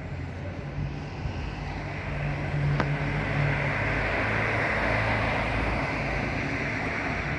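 Road traffic: a passing vehicle's engine and tyre noise swells to a peak about halfway through and then eases off, with one sharp click a little before that.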